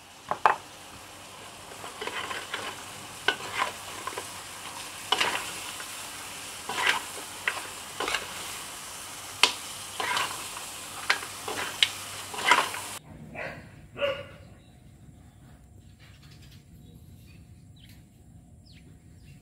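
Mud crabs stir-frying in curry paste in a wok: steady sizzling with irregular clinks and scrapes of the metal spatula against the wok and the crab shells. The sizzle cuts off abruptly about two-thirds of the way in, leaving a couple of faint knocks and then only faint background sound.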